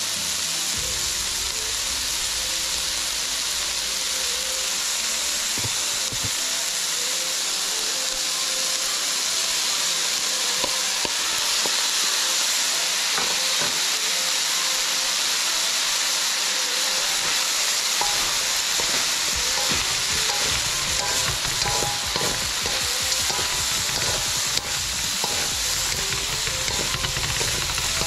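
Chopped red onion and garlic sizzling steadily in hot oil in an aluminium wok, with shredded chicken added and stirred in using wooden spatulas. The stirring and scraping get busier in the second half.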